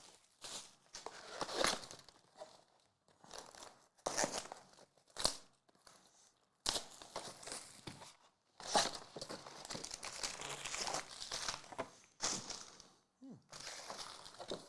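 Mosaic basketball card pack wrappers crinkling and tearing as packs are ripped open and the cards handled, in irregular bursts with short pauses between them.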